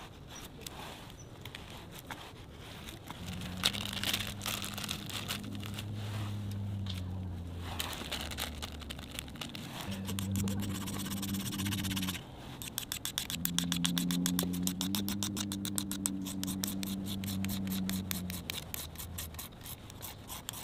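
Steel knife blade scraping and shredding twine fibres into fluffy tinder on a wooden stump, in quick repeated strokes that come faster in the second half. Soft music with low held notes plays underneath.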